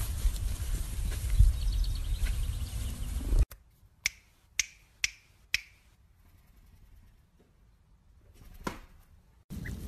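Low rumbling noise that cuts off suddenly after about three and a half seconds. Then come four sharp clicks about half a second apart, and a fifth near the end.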